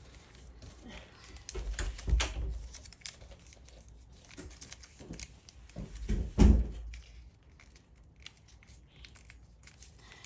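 Origami paper crinkling and rustling as it is folded and creased by hand, in many short crackles. There are two louder spells of handling, about two seconds in and again past the middle. The second is the loudest, with a dull thump.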